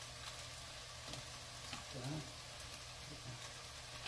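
Faint, steady sizzling of hot burger grease on a stovetop griddle, with hamburger buns toasting on it.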